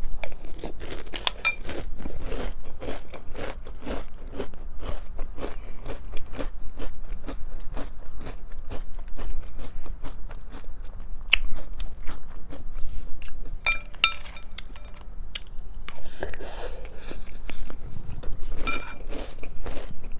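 Close-up crunching and chewing of breakfast cereal in milk, mouthful after mouthful. A few light clinks of a spoon against the bowl come around the middle and near the end.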